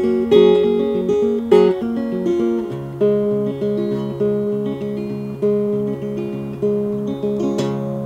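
Levin acoustic guitar with a capo, fingerpicked: a run of plucked notes and chords, the bass line moving lower about three seconds in. Near the end a last chord is struck and left ringing.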